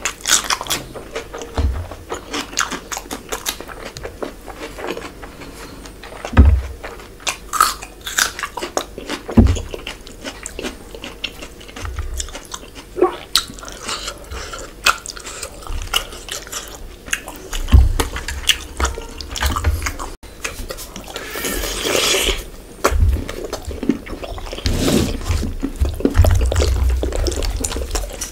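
Close-up eating sounds: wet chewing and lip smacking of spicy fish curry eaten by hand, with fingers squelching through the gravy. Many small clicks and a few dull thumps are scattered throughout.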